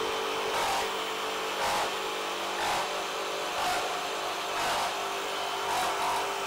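Makita GRJ02 40V XGT brushless reciprocating saw cutting at full speed with orbital action on through a 2x8 header with OSB in the middle and framing nails in it. The blade's cutting noise over the motor's steady whine swells and eases about once a second.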